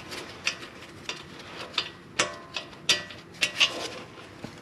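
Hand tools working on the steel hub assembly: a dozen or so sharp, irregular metallic clicks and clinks, about two or three a second, with a brief ring after some of them.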